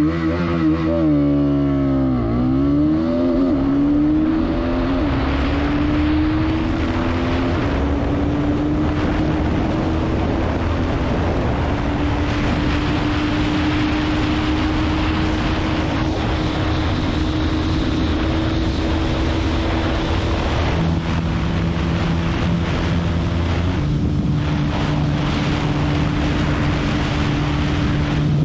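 Bajaj Pulsar NS200's single-cylinder engine at full throttle, climbing through the gears: its pitch rises and drops back with each quick upshift over the first several seconds. It then holds a high, slowly rising note near top speed, with one more small drop in pitch about three quarters of the way through, under heavy wind noise on the microphone.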